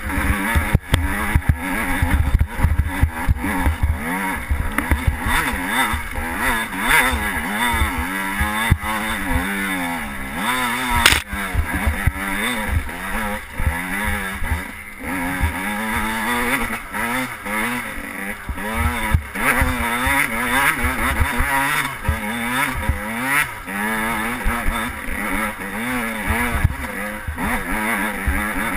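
Dirt bike engine being ridden hard, its revs climbing and dropping again and again as the rider works the throttle and shifts gears, with wind buffeting the microphone. A single sharp knock about eleven seconds in.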